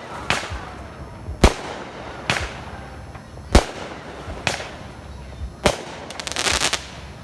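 Fireworks going off: six sharp booms about a second apart, each with a trailing echo, then a quick run of crackling near the end.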